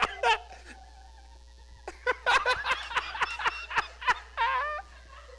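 Hearty, helpless laughter: rapid breathy bursts with a pause after the first second, then a long run of pulses ending in a high squealing gasp.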